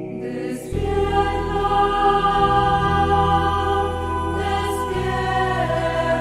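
Devotional song: a choir singing the refrain over sustained instrumental accompaniment, with a deep bass coming in under a second in.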